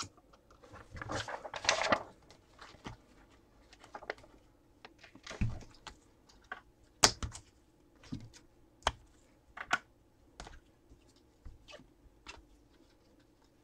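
Scattered light clicks and taps, uneven and spaced apart, with a few brief rustles, from hands working at a desk.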